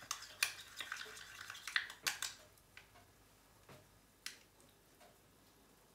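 Metal utensil clinking and scraping against a small ceramic cup while sauce is scooped out: a quick run of light clinks over the first two seconds or so, then a few scattered single ticks.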